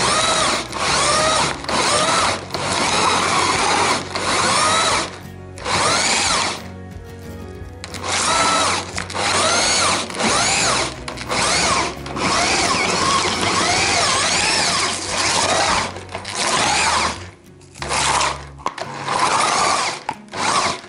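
Electric drill turning a hand meat grinder's auger through meat and onion, run in short bursts: the motor whine rises and falls in pitch with each trigger pull and stops in between, with a longer pause about two-thirds of the way through the first half.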